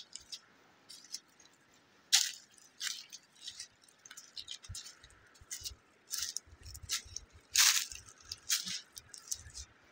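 Footsteps crunching through dry leaves and twigs on a sandy path, in uneven steps roughly every second, with low dull thumps in the second half.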